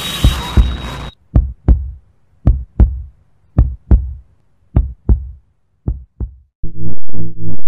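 Heartbeat sound effect: paired lub-dub thumps about once a second after a hiss with a high steady tone cuts off about a second in, the beats growing fainter. Near the end a loud pulsing electronic tone starts, throbbing about twice a second.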